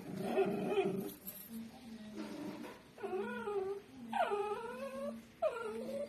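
Dogs and a kitten squabbling over a bone: a low, rough growl in the first second, then three drawn-out, wavering cries a little over a second apart.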